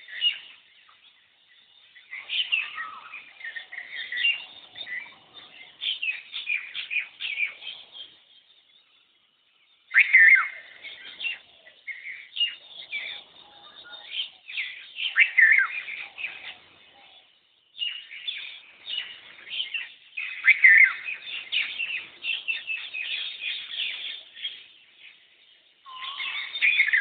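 Birds calling, including an Asian koel (koyal): spells of dense, shrill chirping with a few clear whistled notes, each spell a few seconds long with short breaks between.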